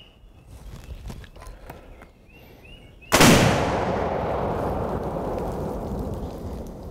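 A single explosion of a small explosive charge packed into a tree trunk: one sharp, very loud blast about three seconds in, followed by a long rumbling decay. A few faint bird chirps come before it.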